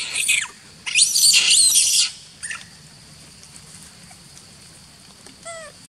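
Young macaque screaming in high-pitched, wavering squeals: a short one at the start and a longer run from about one to two seconds in. A brief call falling in pitch follows near the end.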